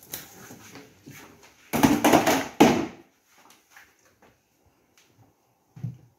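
Handling noises from a plastic tub and metal snake tongs: soft clicks and knocks, with one loud rustling scrape lasting about a second, about two seconds in, and a short low thump near the end.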